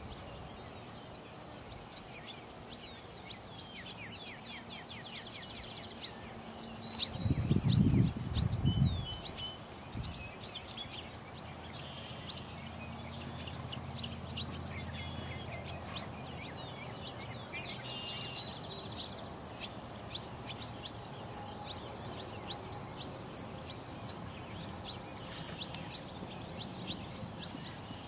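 Outdoor field ambience with many short bird chirps over a steady high background hum. A loud low rumble comes in bursts about seven to nine seconds in.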